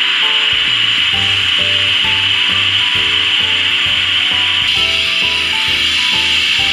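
Background music: a melody of short stepping notes over a pulsing bass line, with a steady hissing layer in the mix.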